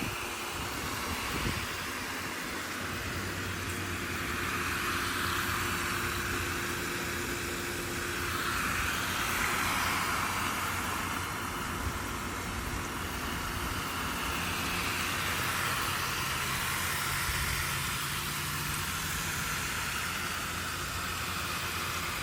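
Water splashing and trickling steadily through a GreenStalk vertical planter tower as it is watered, swelling and easing gently as the flow moves.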